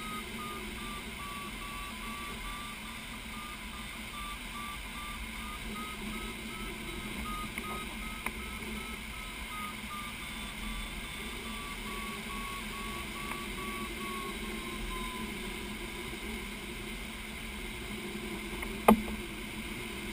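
Glider's audio variometer beeping in a rapid steady series, its pitch wavering and then falling lower about fifteen seconds in; the beeping is the sign that the glider is climbing, its pitch following the climb rate. Steady cockpit airflow hiss underneath, and one sharp click near the end.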